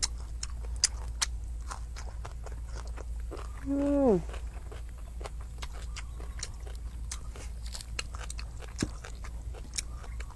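Close-up eating sounds: scattered sharp clicks and small crunches of chewing and of fingers picking apart grilled fish, over a steady low rumble. About four seconds in, a short vocal hum that falls in pitch.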